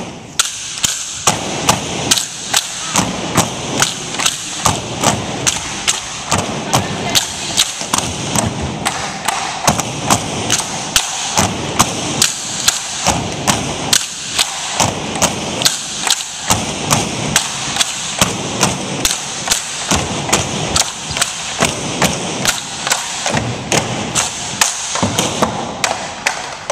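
Tinikling poles of grey plastic pipe knocked on the wooden gym floor and struck together in a steady rhythm, about two to three knocks a second.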